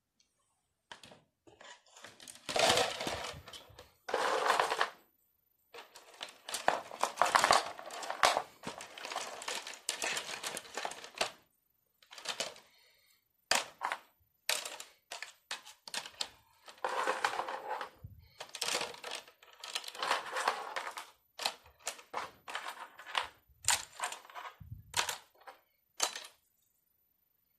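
Copper radiator tubes dropped and shifted into a plastic bucket, clinking and clattering against each other and the plastic in irregular bursts with short pauses between handfuls.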